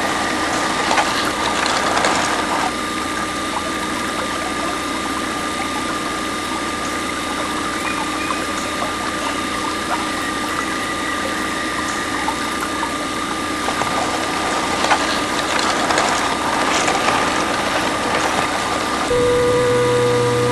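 Small DC motor of a homemade mini water pump running steadily with a high whine, over splashing and light rattling. A second, lower hum joins near the end.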